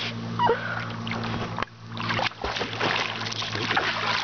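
Lake water splashing and sloshing close by as a bull terrier swims, over a steady low hum, with a short falling squeak near the start.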